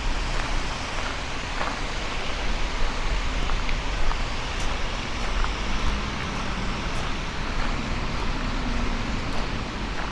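Outdoor city-park ambience: a steady noise of distant road traffic and wind rumbling on the microphone, with a few faint scattered clicks.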